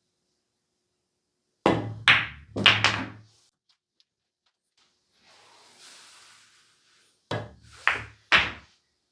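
Pool balls and cue knocking and clacking on a pool table: three sharp hits with a deep thud under them just under two seconds in, a soft rushing noise from about five to seven seconds, then three more hits near the end.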